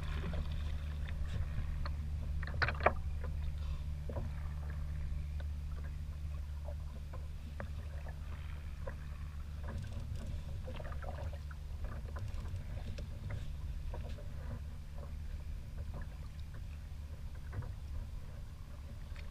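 Water lapping and slapping against a sit-on-top kayak's hull over a steady low rumble, with scattered light ticks and one sharp knock about three seconds in.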